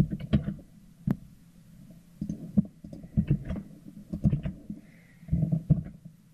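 Computer keyboard keys and mouse buttons clicking in short clusters of two or three as shortcuts are pressed, with Shift+R and Ctrl+Z typed in bursts.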